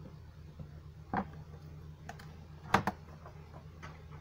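A few short, light clicks and taps about a second apart, the loudest a quick double click near the end, from hands working at the CCTV DVR and its cable connections, over a steady low electrical hum.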